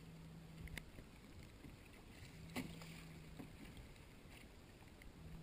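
Near silence on a kayak at sea: faint water and wind noise, a faint low hum that comes and goes about every three seconds, and a few light clicks.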